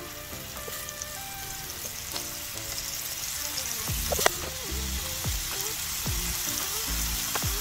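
Food sizzling as it fries in oil in a pan, the sizzle growing louder from about halfway, with a sharp click about four seconds in. Background music with melodic notes plays throughout.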